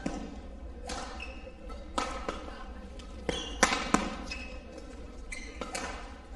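Badminton rally: sharp racket strikes on the shuttlecock about once a second, the loudest two close together a little past the middle, with short high squeaks of court shoes on the floor between them.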